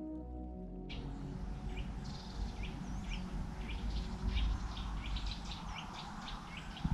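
Background music ending within the first second, then small birds chirping repeatedly in short, quick calls over a steady outdoor hiss and low wind rumble.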